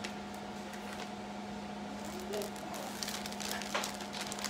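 Plastic wrapping crinkling and rustling in short scattered crackles as raw ground beef is handled on it, mostly in the second half, over a steady low electrical hum.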